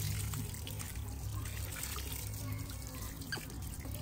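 Water running from an outdoor tap pipe in a steady stream, splashing over a baby monkey's body and onto the ground.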